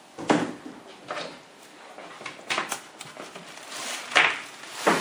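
Styrofoam packing and the plastic bag around a boxed printer being handled: irregular knocks and rustles, the loudest just after the start and about four seconds in.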